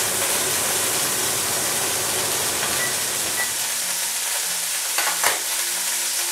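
Thin ribeye steak frying in oil in a pan on a gas stove, a steady sizzle of spattering grease. A short clatter about five seconds in.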